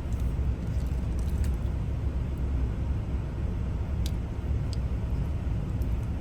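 Steady low rumble with a few light, sharp clicks as the key and small metal parts of an ignition lock cylinder are handled.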